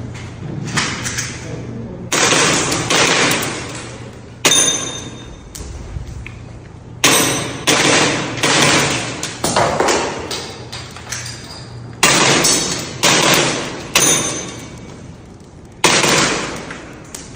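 Tokyo Marui G17 Gen4 gas blowback airsoft pistol firing a string of shots at uneven intervals, each a sharp crack that trails off over about a second.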